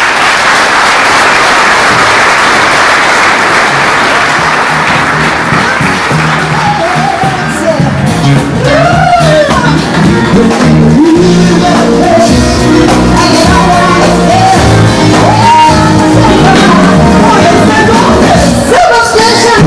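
Audience applauding, with the applause fading as music with a singer and a steady bass line comes in about six seconds in and carries on.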